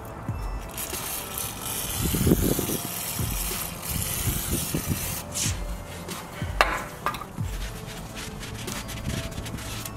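Aerosol brake cleaner sprayed through its straw onto a rusty front wheel hub: a long hiss of spray, then a shorter burst a little later. Near the end, a rag rubs the hub clean.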